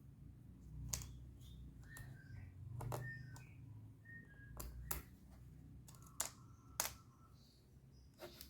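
Irregular sharp clicks and light knocks, about seven of them, with a few faint short squeaks: small parts and tools being handled while working on an Asus A409MA laptop.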